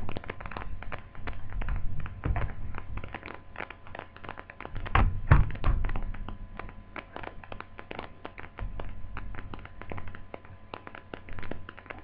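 Toshiba laptop being handled and worked on: a dense run of small plastic clicks and taps, with louder thunks about two and five seconds in.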